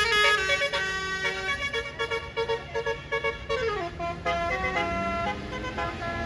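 Tour bus's Basuri telolet multi-tone air horn playing a quick melody, with a run of short repeated notes and a downward slide in pitch about halfway through. It grows fainter toward the end.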